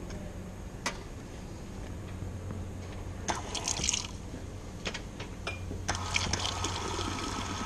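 Self-service soft-drink dispenser pouring a drink into a cup: a rushing pour that starts about six seconds in and carries on. Before it come a few clicks and a brief hiss, over a steady low hum.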